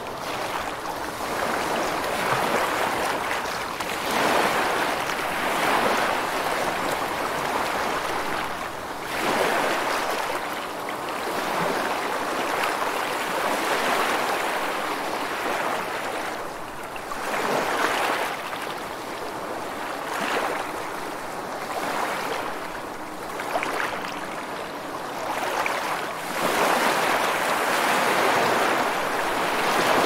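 Ocean surf breaking on a shore, a steady wash of water noise that swells and fades every few seconds, with the strongest surge near the end.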